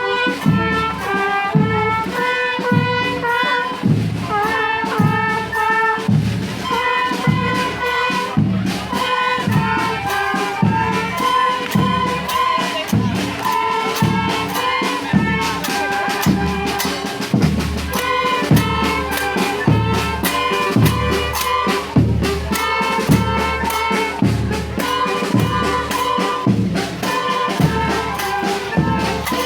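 Marching orchestra playing a tune live: held melody notes over a steady drum beat of about two strokes a second.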